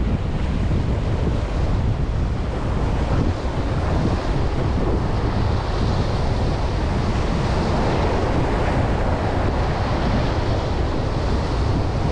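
Wind rumbling on the microphone over the steady wash of ocean surf, with no pauses or distinct events.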